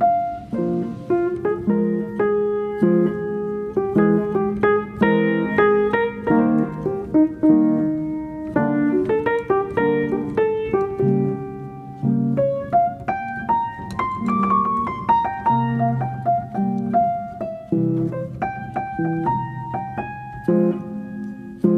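Background piano music: a steady run of single notes over low chords, with no workshop sounds heard.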